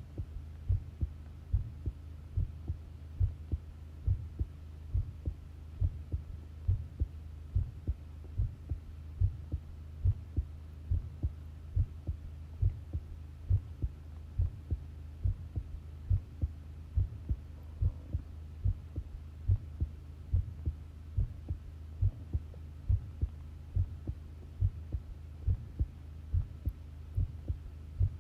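Human heartbeat, close-recorded: regular, evenly spaced deep thuds over a steady low hum.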